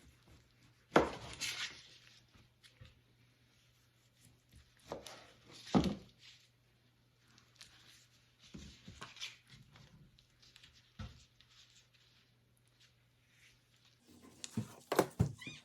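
Kitchen knife knocking and scraping on a cutting board while trimming raw chicken breast: a few sharp knocks, the loudest about a second in, with quieter scraping between them.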